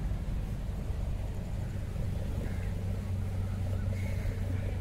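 Steady low rumble of a boat engine running.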